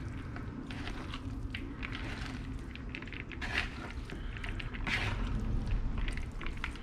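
Shredded chicken and broccoli slaw being stirred through teriyaki and soy sauce in a bowl: irregular wet squishing and scraping.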